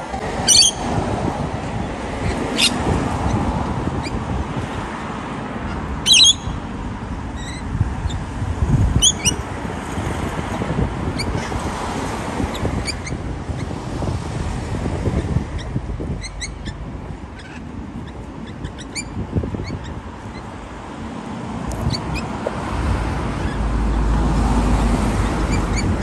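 Rainbow lorikeet giving short, shrill screeches, a few loud ones in the first ten seconds and fainter ones after, over a steady low rumble that grows louder near the end.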